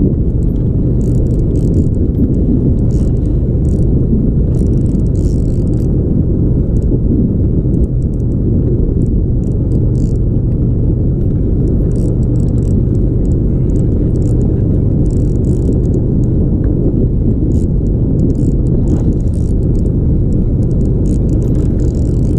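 Fishing boat's engine running steadily with a low rumble.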